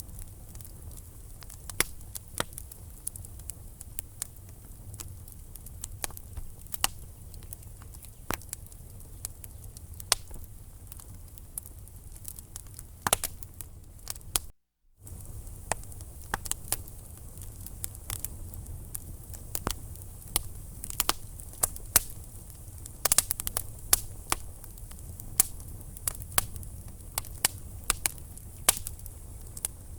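Wood fire burning in a fireplace, crackling with irregular sharp pops and snaps over a low steady rumble. There is a brief half-second gap of silence about halfway through, and the snaps come thicker in the second half.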